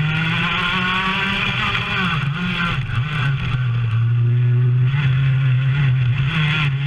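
Racing kart's engine, heard from an onboard camera, at full throttle along a street circuit; its pitch climbs, drops back and climbs again a few times as the kart accelerates and slows for the bends.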